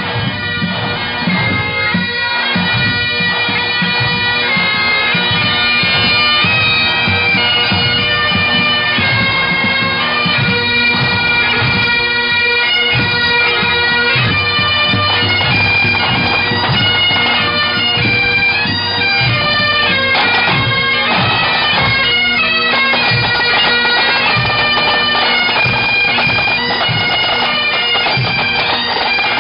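Bagpipes playing a tune over their steady drone, with drums beating time underneath.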